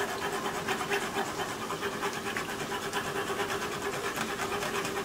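Empanadas deep-frying in hot oil: a steady, dense sizzling and crackling of bubbling oil, with a faint steady hum underneath.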